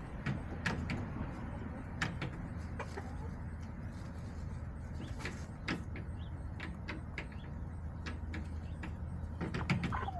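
Backyard hens pecking and scratching, making irregular sharp taps and clicks, over a steady low hum.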